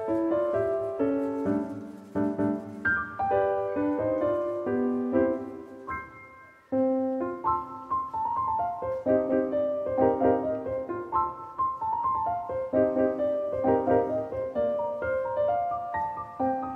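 Background piano music: a melody of single struck notes and chords. It dies away about six seconds in and starts again a moment later.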